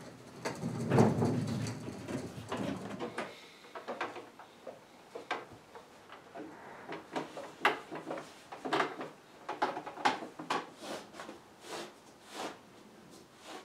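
Antique wooden drop-leaf table being handled: a heavy thump about a second in as it is moved, then a run of short, sharp knocks and clicks of wood as it is turned over and worked on.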